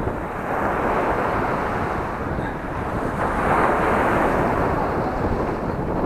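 Sea waves breaking and washing up a pebble beach, swelling louder as each wave comes in, with wind buffeting the microphone.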